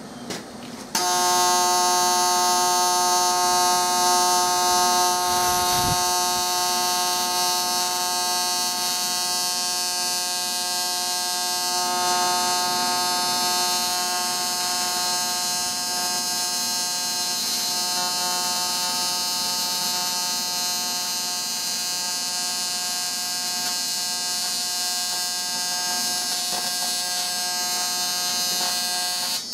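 AC TIG welding arc buzzing steadily on a cast-aluminium engine intake, with the AC frequency set to 175 Hz and a high cleaning setting for the dirty, porous casting. The arc strikes about a second in and cuts off at the end.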